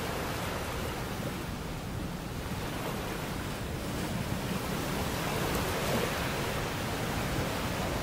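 Atlantic Ocean surf breaking and washing over rocky shore ledges: a steady rush of foaming water that grows a little louder in the second half.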